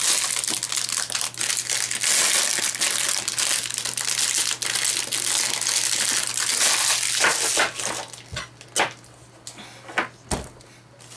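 Clear plastic bag crinkling steadily as it is pulled open and a small vinyl figure is unwrapped. About seven seconds in the crinkling stops, leaving a few scattered light clicks and taps.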